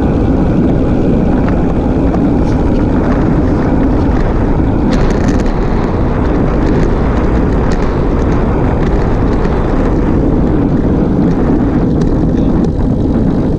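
Steady wind buffeting on the bike-mounted camera's microphone, mixed with the road bike's tyres rolling on asphalt at speed. A few light clicks come about five seconds in.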